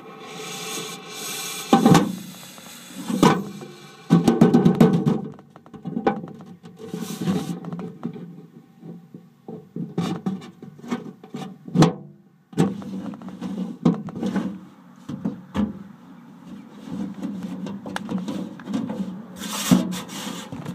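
Irregular knocks, thumps and rubbing inside a mailbox, with the loudest knocks about two, three and four seconds in and again around ten and twelve seconds.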